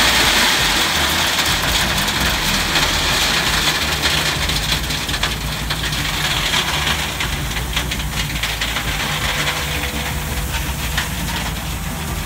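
Gravel pouring from a wheel loader's bucket into a pickup's bed: a loud rushing rattle, loudest at first and tapering off, with scattered clicks of single stones later on. A Cat wheel loader's diesel engine runs steadily underneath.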